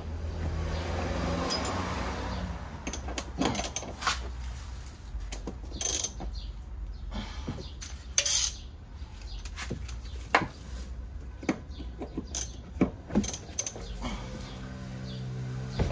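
Metal hand tools clinking and knocking at irregular intervals, with a couple of louder clanks: sockets and wrenches being handled and fitted to a car's rear strut bolts.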